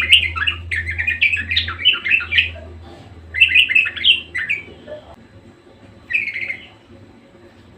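Budgerigar warbling in rapid runs of chirps and chatter: two long bursts, then a short one about six seconds in.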